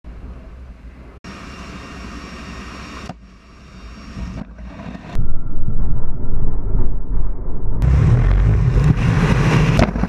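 Turboprop cargo aircraft noise heard from inside the open cargo hold during an airdrop: a heavy engine drone and rushing air, in several abruptly cut segments. It gets much louder about five seconds in, and near the end a loud rush of wind on the microphone takes over as the view leaves the aircraft.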